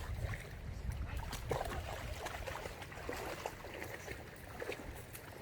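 River water splashing and sloshing in irregular small bursts, over a low rumble.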